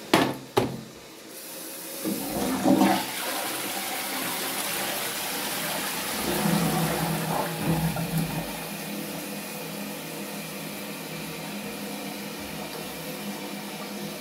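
High-level toilet cistern flushed down its pipe into the bowl: two sharp clicks of the flush mechanism, then water rushing in from about a second in with a few knocks, settling into a steady hiss of running water as the cistern refills. A test flush of the freshly refitted cistern.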